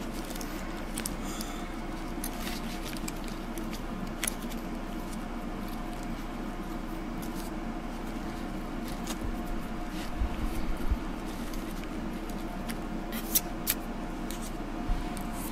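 Hands handling paper flowers and embellishments on a handmade card, pressing them into place: soft rustles with scattered small taps and clicks, a short cluster of them about two-thirds of the way in and two sharper clicks near the end, over a steady low hum.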